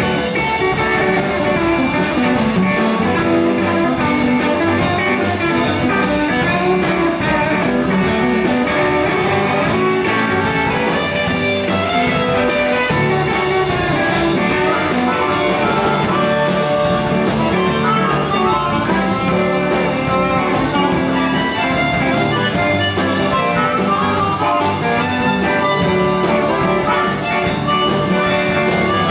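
Live electric blues band in the 1950s Chicago style: two electric guitars over a drum kit, with a harmonica played through a microphone.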